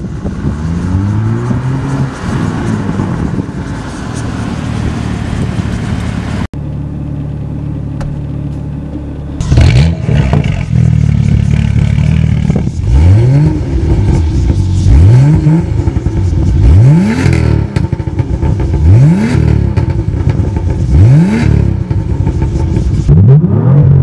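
BMW M2 F87's 3.0-litre twin-turbo inline-six through an Armytrix valvetronic turbo-back exhaust, flaring up and settling into a steady idle. From about ten seconds in it is blipped in short, sharp revs about every two seconds, crackling and popping as the revs drop.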